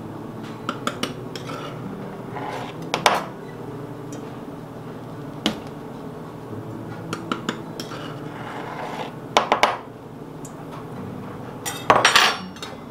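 Metal utensils clinking and scraping against a stainless steel canister as flour is scooped and levelled off with a knife for measuring. The sound is a scatter of light clinks and taps, with a few louder scrapes.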